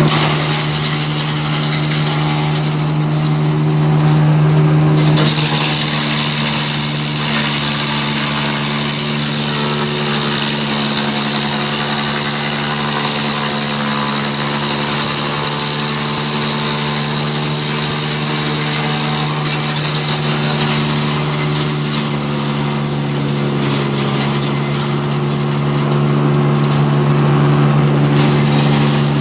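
Hasatsan DP 700 T wood chipper running steadily, then chipping wood from about five seconds in: a loud, hissing shredding noise rises over the drive's hum, and the hum's pitch dips slightly under the load. Near the end the chipping noise dies down and the pitch comes back up as the machine runs free again.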